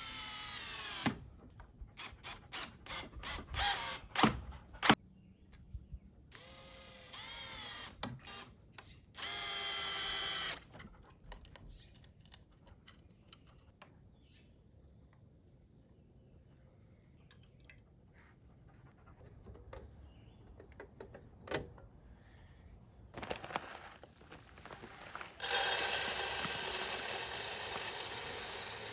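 Power tool, like a drill, running in several short bursts with a whine that changes pitch, with clicks and knocks in between. Near the end a loud steady hiss sets in.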